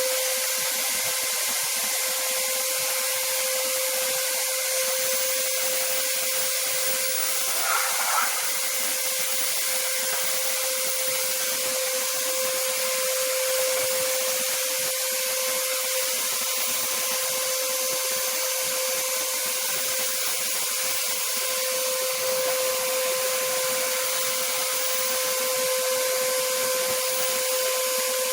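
2000-watt wet-and-dry shampoo vacuum cleaner running steadily in suction mode: a high motor whine over rushing air as the floor head is worked over the floor, with one short scuffing noise about eight seconds in.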